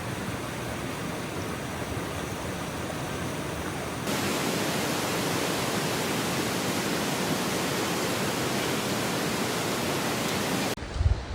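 Steady rush of falling water from a waterfall, a little louder from about four seconds in, cutting off suddenly near the end.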